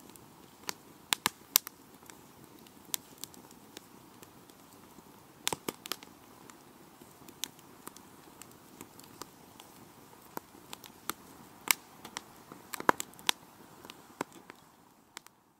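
Campfire crackling: sharp, irregular pops from the burning wood over a low, steady rush of the flames. It fades out near the end.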